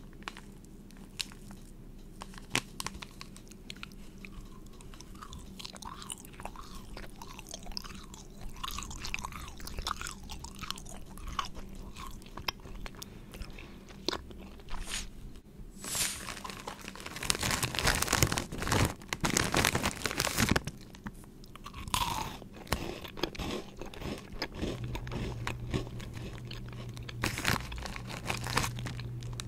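Close-miked chewing and biting of Sour Power Straws mango sour candy straws: a long run of crunchy, sticky mouth sounds, growing denser and louder about two-thirds of the way through. Near the end a snack packet is handled.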